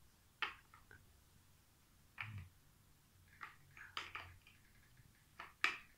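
Plastic building bricks clicking and clacking as they are picked up and pressed together, a scattered handful of quiet, sharp clicks.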